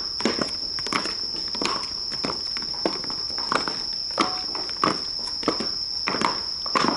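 Hard-soled footsteps of several Shinto priests walking on stone, uneven steps about every half second. A steady high tone runs underneath.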